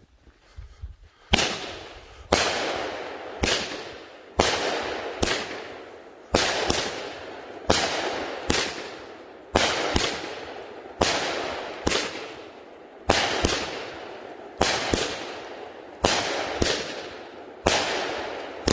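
A 13-shot 200-gram consumer firework cake (Dominator Liberty, golden tails to brocade crown willows) firing: a first bang a little over a second in, then loud bangs about once a second, a few in quick pairs, each trailing off in a fading hiss.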